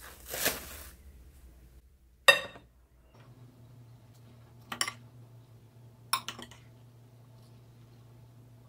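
Spoon stirring shrimp ceviche in a glass bowl: a soft wet rush of the mix being turned at the start, then three sharp clinks of the spoon against the glass, the first and loudest about two seconds in.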